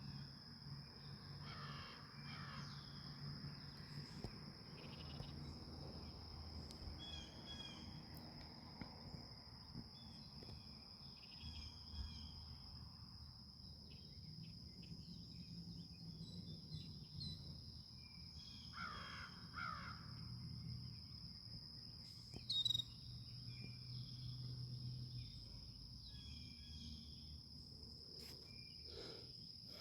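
Birds calling in scattered short calls, with a clearer pair of calls about two seconds in and again near twenty seconds, over a steady high-pitched hum.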